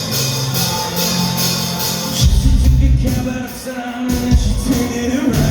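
Live rock band playing the instrumental intro of a song: electric guitars and drums with rapid, even cymbal strokes. About two seconds in, the band drops into a heavier passage driven by bass and kick drum.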